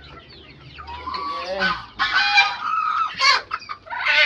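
Chicken squawking loudly in alarm while being caught and held, a run of harsh repeated squawks starting about a second in.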